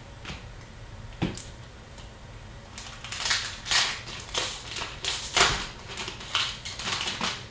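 Hockey card packs being opened and handled: wrapper and cards crinkling and rustling in a run of short, sharp bursts over the second half, after a single click about a second in.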